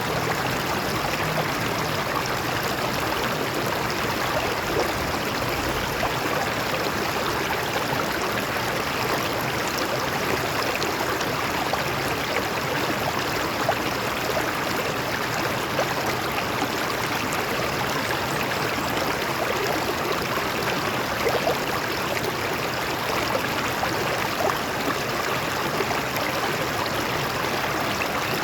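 Stream water flowing over rocks: a steady, even rush with small splashes and gurgles.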